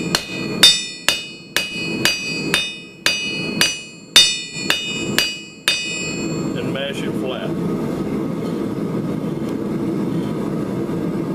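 Hand hammer striking the red-hot end of a schedule 40 steel pipe on an anvil, mashing it flat, at about two blows a second, each blow leaving a metallic ring. After about six seconds the blows stop suddenly and a steady low rushing noise carries on.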